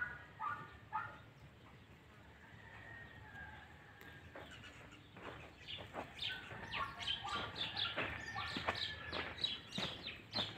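Birds chirping: a few short calls at the start, then a busy run of rapid chirps from about five seconds in.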